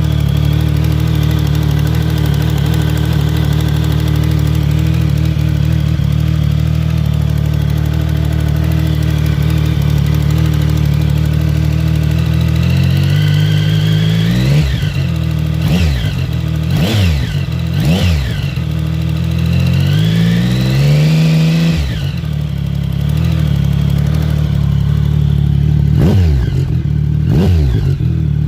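2014 Triumph Speed Triple's 1050 cc inline-three engine idling steadily, then blipped several times in quick succession, given one longer rev, and blipped twice more near the end. It runs with a ticking that came from loose exhaust header bolts.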